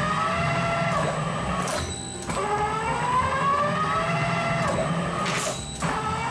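Industrial twin-shaft shredder running, its steel cutters turning against a soft rubber tiger toy that slips on them without being caught. Repeated squeals rise in pitch over about two seconds each, above the machine's low hum.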